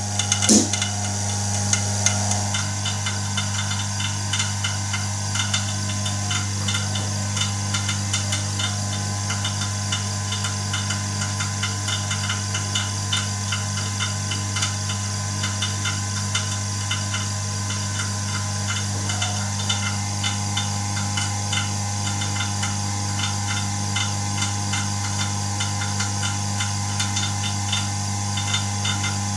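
A homemade Farnsworth fusor running under high voltage with its grids glowing: a steady electrical hum with fast, irregular ticking and crackling over it.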